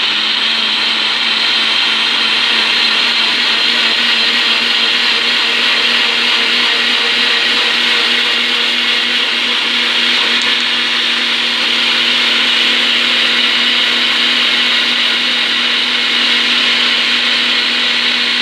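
Nutrition Mixer personal blender motor running steadily at full speed, blending carrot, kiwi, pear and peach with juice into a smoothie.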